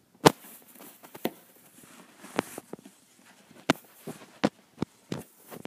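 Hand-weaving strips being worked back under and over on a box form: a light rustling with about eight sharp, irregular clicks and taps.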